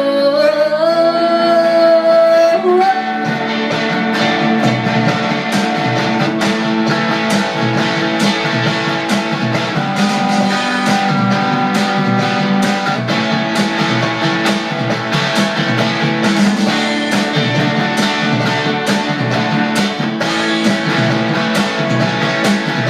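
Band playing an instrumental passage of guitar chords over a steady drum beat, with a sung note held for the first two to three seconds before the voice drops out.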